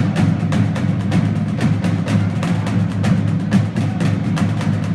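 Marching drum line playing, with rapid, dense snare drum strokes over the steady sound of the bass drums.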